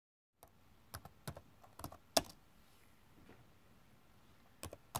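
Computer keyboard being typed on: about ten irregular keystrokes, a quick run in the first couple of seconds, the loudest a little after two seconds in, then two more near the end.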